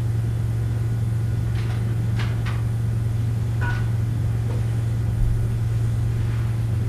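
Steady low hum on a cassette recording, with a few faint, brief sounds between about one and a half and four seconds in.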